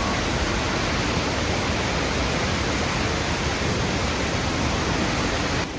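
The roar of Akiu Great Falls, a large waterfall: a steady, dense rush of falling water, dropping abruptly a little in level near the end.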